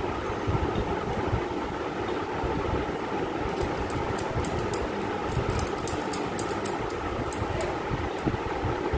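Steady whir of an electric fan running. From about three and a half to eight seconds in, a scatter of light high clicks sits over it as hands work the dough by a steel bowl.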